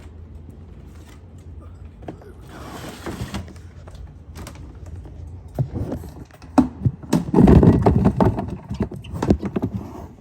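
Handling noises in a snake enclosure while a live rat is fed off: scattered knocks, clicks and rustling, with a louder burst of thumping and scuffling about seven seconds in.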